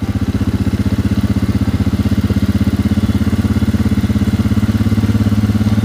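Quad bike engine running steadily at low, even revs, with a rapid, regular pulse.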